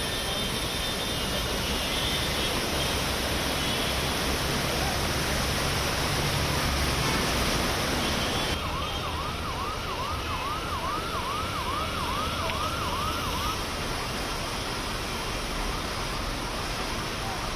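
Steady background noise with a siren warbling up and down about twice a second for around five seconds, starting a little past the middle.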